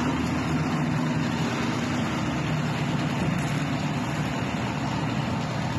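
Steady engine rumble under a constant wash of outdoor noise, from emergency vehicles (an ambulance and fire engines) at the scene of a burning fuel tank.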